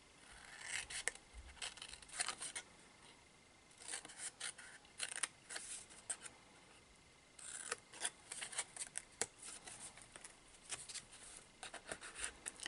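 Scissors snipping through cardstock in about five short runs of crisp cuts with brief pauses between, cutting away corner sections of a box lid to leave glue flaps.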